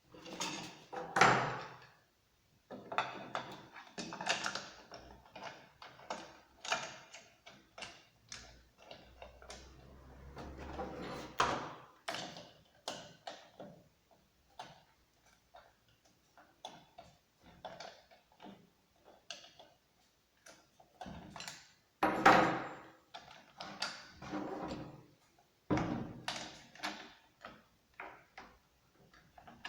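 Irregular handling noises of a chainsaw unboxing: knocks, clicks and rustling of packaging and parts, with a sharper, louder knock about a second in and another about 22 seconds in. No engine is running.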